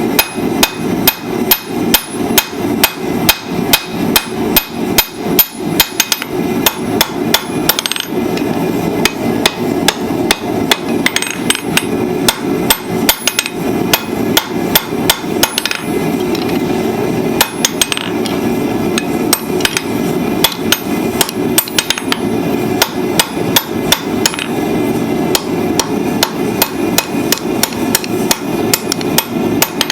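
Blacksmith's hammer striking hot steel on the anvil, forging tongs, in a steady rhythm of about two to three blows a second. Each blow leaves a ringing tone from the anvil, over a steady low rushing noise.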